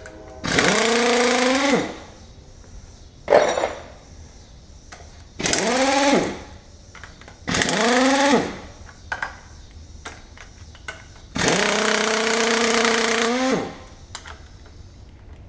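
Impact wrench zipping bolts off an engine in four short runs, each spinning up, hammering and winding down, with a brief rattle between the first two.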